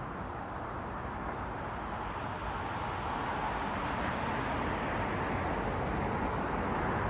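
City road traffic: a steady hiss of tyres and engines from passing cars, growing slowly louder.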